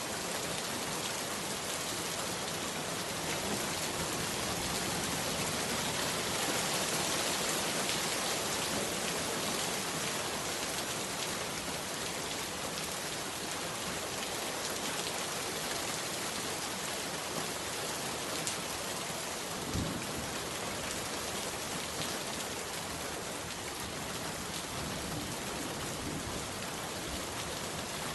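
Steady rainfall: a dense, even hiss of rain on surfaces with scattered individual drops, plus one low thud about twenty seconds in.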